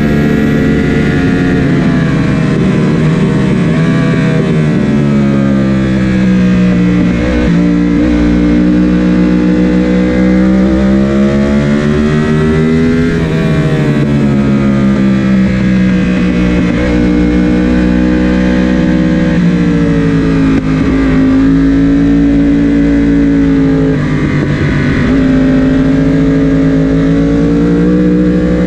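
Sport motorcycle engine heard onboard at track speed, its revs rising and falling repeatedly as the rider works the throttle and changes down from fifth to third gear for corners.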